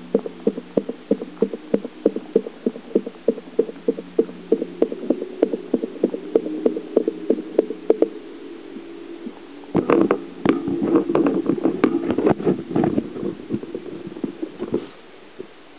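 Water bubbling and glugging in a bucket gravity bong, heard from underwater: about four pops a second over a steady low hum, a brief lull, then a denser run of bubbling that stops shortly before the end.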